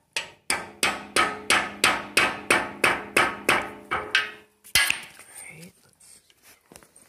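Hammer striking a 30 mm socket and extension to drive a new steering stem bearing into a Yamaha Banshee's steel frame until it is fully seated: about a dozen ringing metal strikes, roughly three a second, then one last strike a moment later.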